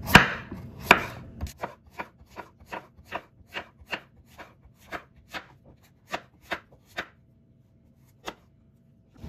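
Kitchen knife slicing a zucchini into rounds on a wooden cutting board: a run of sharp chops, about two to three a second, the first two loudest. The chopping stops about seven seconds in, with one last chop a second later.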